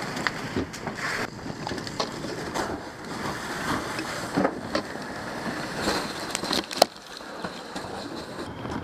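Rustling and clatter of firefighters' gear and hose being handled, with scattered knocks and one sharp knock near the end.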